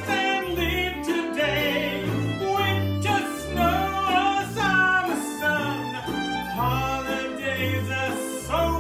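A man singing a song, accompanied by fiddle, a plucked upright double bass line and banjo.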